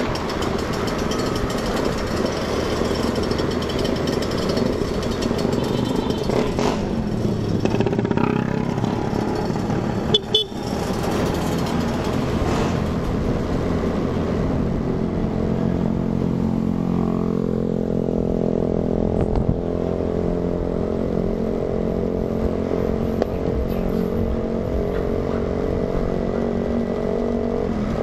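Motor scooter engine running steadily under way, with road and wind noise; its engine note comes through more clearly in the second half. A brief thump about ten seconds in.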